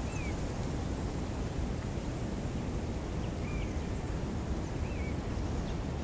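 Wind noise, a steady rumbling hiss, with a small bird giving a few short, curling chirps.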